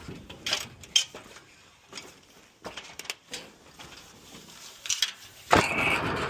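Scattered knocks and light clatter from hand work on building materials. The loudest is a sharp knock with a brief ring about five and a half seconds in.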